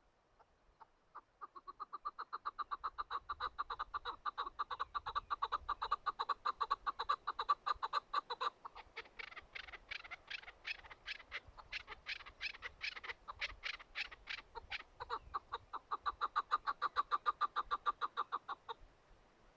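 Chukar partridge calling: a long run of rapid clucking notes that turns harsher in the middle, then returns to the first pattern before stopping shortly before the end.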